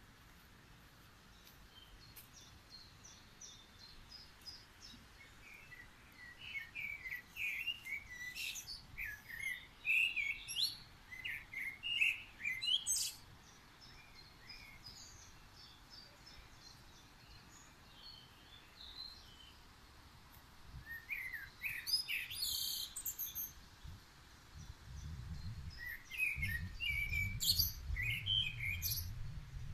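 Songbirds singing in three spells of quick chirps and trills over a faint steady hiss, with a low rumble coming in near the end.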